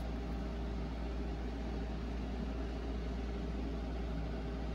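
Steady low hum and hiss of background room noise, with no distinct events.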